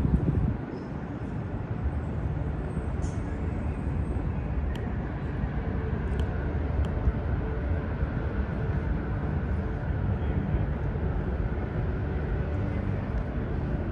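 Steady low rumble and hiss of background ambience, with a few faint light clicks.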